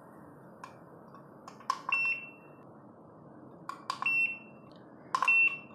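SkyRC IMAX B6 V2 balance charger's front buttons clicking as they are pressed, each press answered by a short, high beep from the charger. Three beeps in all, confirming the key presses as the menu steps from screen to screen.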